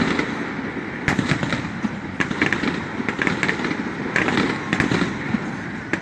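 Fireworks going off in a rapid string: sharp bangs about every half second to second over continuous crackling.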